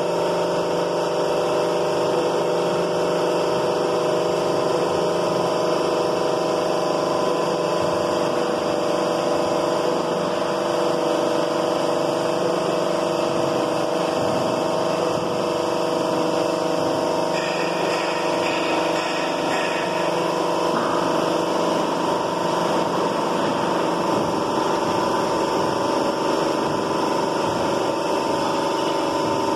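Steady electric-motor drone of the MD-523 bogie lifting jacks' drive running, several steady tones over an even mechanical hum. A hiss joins a little past halfway for a few seconds.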